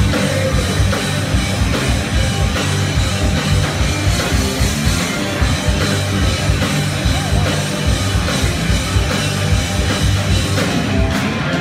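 Live rock band playing loud: distorted electric guitars and bass over a drum kit keeping a steady driving beat.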